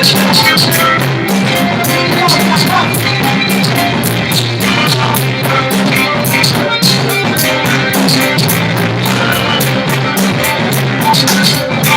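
A live band playing a rock-style song: drum kit with busy, evenly spaced cymbal strokes, a moving low bass line and guitar, played without a break.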